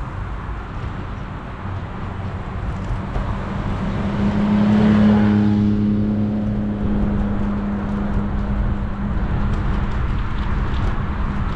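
A motor vehicle passes close by, its hum and tyre noise swelling to a peak about five seconds in and then fading. Under it runs steady wind noise on an unshielded action camera's microphone while riding a bicycle.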